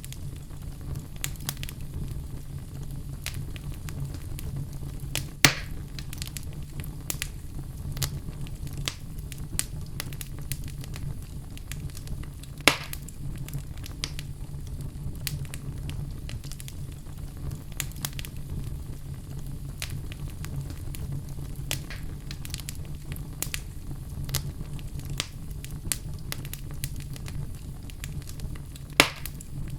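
Crackling fire: a steady low rumble with many small crackles and a few louder pops, three standing out, about five seconds in, near the middle and near the end.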